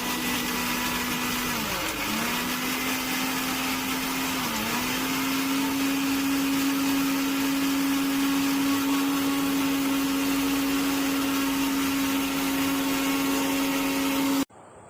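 Suruchi Elantra 800-watt mixer grinder motor running at full speed with a steady high whine; its pitch dips briefly twice in the first few seconds, then holds steady until it is switched off abruptly near the end.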